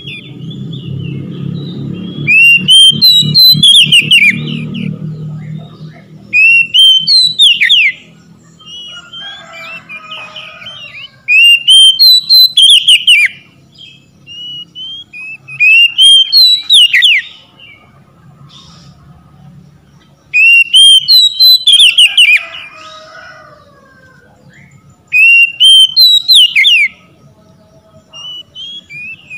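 Oriental magpie-robin singing: loud whistled phrases of quick, curving and falling notes, in about six bursts of one to two seconds each with short pauses between.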